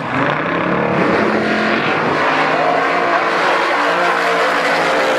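Two drag-racing cars' V8 engines at full throttle, launching from the start line and accelerating hard down the strip; the loud engine noise comes in suddenly at the start and holds steady.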